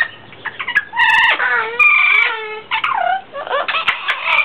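Blue-fronted Amazon parrots calling to each other: a quick string of squawks and chatter, a held whistle about two seconds in, calls that slide down in pitch, and a dense burst of calls near the end.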